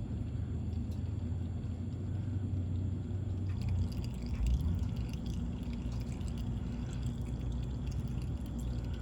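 Engine oil pouring and dripping into a drain pan over a steady low rumble, with scattered small drips and ticks from about a third of the way in.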